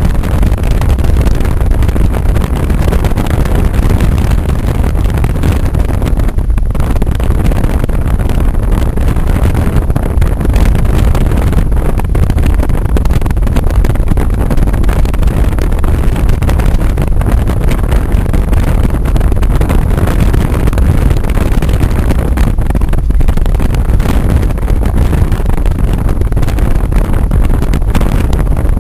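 Car driving along a road: a steady, loud low rumble of road and wind noise, with no break.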